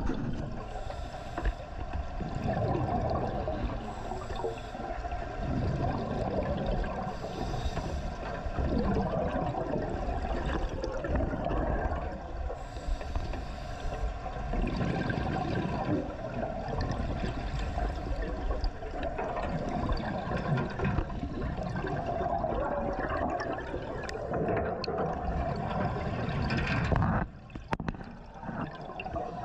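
Water sloshing and gurgling in a continuous, uneven wash, with a brief sudden drop in level near the end.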